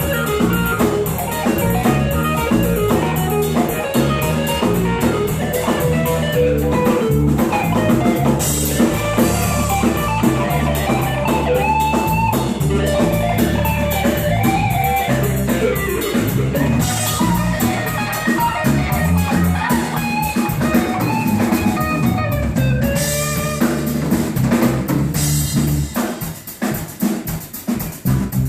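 Live band playing an instrumental passage, with drum kit and guitar to the fore. Near the end the playing breaks into short, separated hits.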